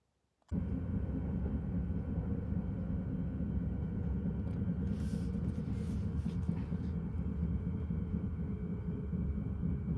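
Steady low rumble of a passenger train running at speed, heard from inside the carriage. It starts about half a second in, with a brief rustle around five to six seconds.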